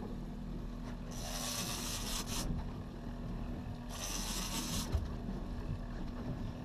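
Two bursts of a rasping, ratchety buzz, about a second and a second and a half long, from a fishing reel's drag giving line under a fish's pull, over the steady hum of the boat's engine.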